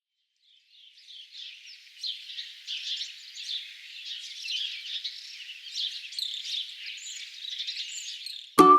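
A chorus of birds chirping, many short calls overlapping, fading in over the first couple of seconds. Plucked-string music cuts in abruptly just before the end.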